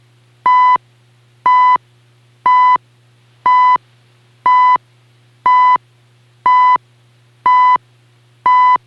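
CHU time-station second ticks received on a portable shortwave radio at 7.85 MHz: a 1 kHz beep about a third of a second long, once every second, nine in all, over a faint steady hum.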